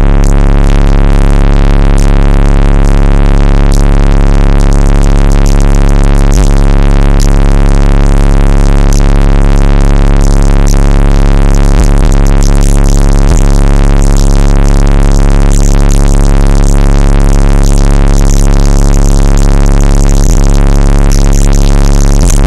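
Rap song played at extreme volume through a single 18-inch Fi BTL subwoofer in a ported box, a deep bass note held almost without a break. It is so loud the recording sits at full scale throughout.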